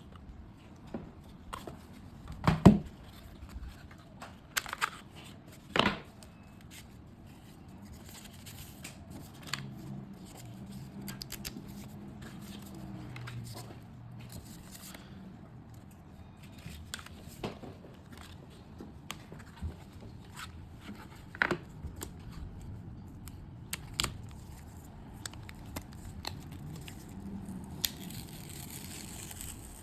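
Unboxing handling noises: packaging tearing and crinkling, with scattered sharp clicks and taps as the box and phone are handled. The loudest knocks come about two and a half and six seconds in.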